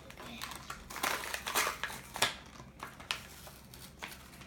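Crinkly foil wrapper being torn and crumpled open by hand: a run of irregular crackles and rustles.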